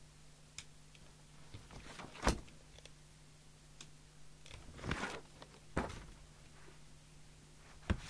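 Handling sounds at a radio workbench: a few sharp clicks and knocks, the loudest about two seconds in, with a short rustle near five seconds, over a faint steady hum.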